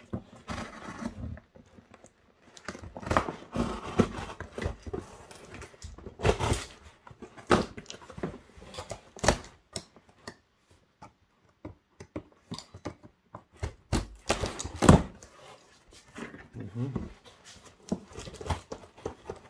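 Utility knife slitting packing tape on a cardboard box, with scraping, tape tearing and cardboard flaps being pulled open. It comes in irregular bursts with short pauses, the loudest about fifteen seconds in.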